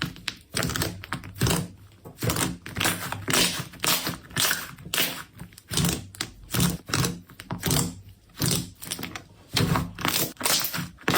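Slime being handled, making rapid, irregular sticky clicks and pops, several a second.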